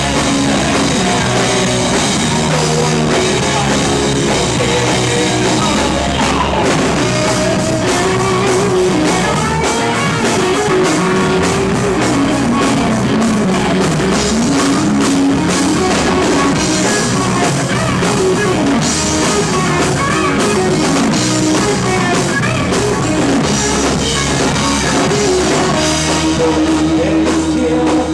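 Live rock band playing loud and steady, with electric guitars and a full drum kit.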